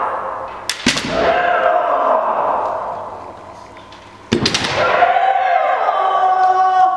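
Kendo fencers' kiai: long, held shouts, broken by sharp cracks of bamboo shinai strikes, a pair of them about a second in and another a little after four seconds, each followed by a fresh shout.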